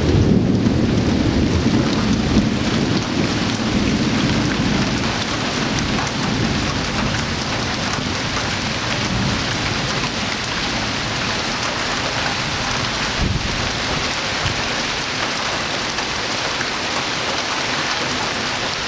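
Steady rain falling in a summer thunderstorm, with a low rolling rumble of thunder in the first few seconds that fades away.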